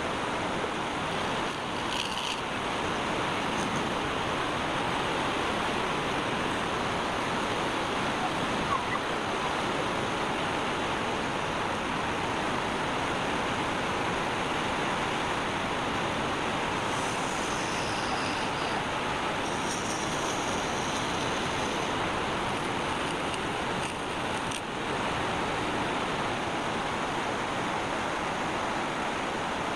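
Wood lathe running while the spinning workpiece is being worked, giving a steady, even rushing noise.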